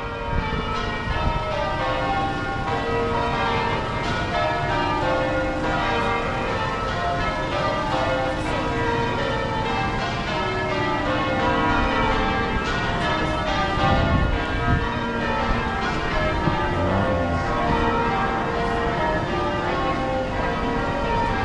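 Tower bells change ringing: a ring of church bells struck one after another in continuous rapid sequence, over low background noise.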